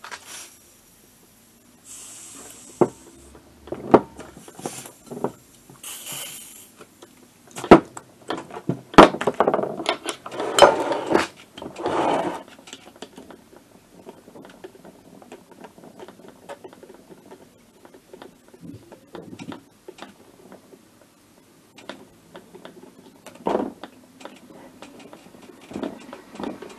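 Metal engine casing being handled and turned on a workbench: scattered knocks, clicks and scraping, loudest from about a third of the way through to the middle, with a couple of short hisses in the first few seconds.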